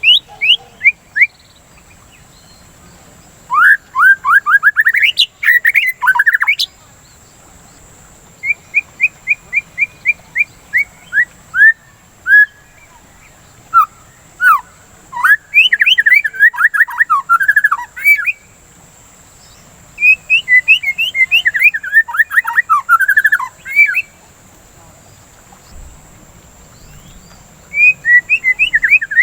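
White-rumped shama (murai batu) singing in five bursts of rapid, repeated whistled notes, sliding up and down in pitch, with pauses of a second or more between bursts. A faint steady high tone runs underneath.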